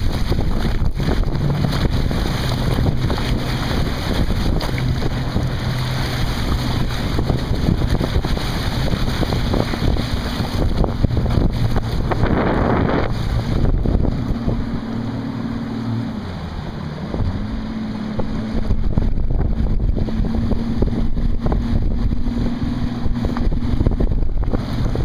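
Bass boat's Evinrude outboard motor running at a steady speed under heavy wind noise on the microphone. The engine note drops about 16 seconds in and comes back up a second or so later.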